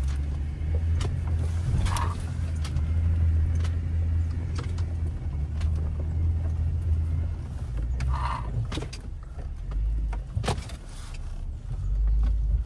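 Jeep engine running at low revs with scattered knocks and clicks. The rumble eases off about two-thirds of the way through.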